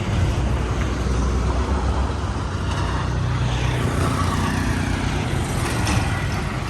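Steady road-vehicle noise: a low engine rumble with traffic and road noise over it.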